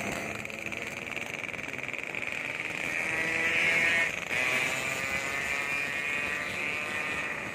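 Yamaha RX-King 135cc two-stroke single with an aftermarket Medan-style exhaust, running and revving: the pitch climbs and the level rises about three seconds in, falls off sharply just after four seconds, then holds steady.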